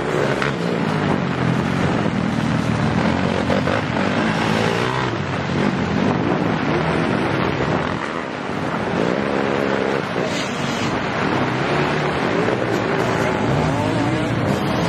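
Off-road dirt-bike engines revving as bikes race past through mud, their pitch rising and falling with the throttle.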